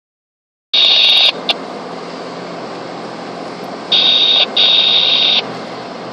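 Steady road noise inside a moving car, broken twice by a loud, high-pitched electronic buzz. The first buzz is brief, about a second in; the second lasts about a second and a half, later on, with a short break in the middle. The first moment is silent.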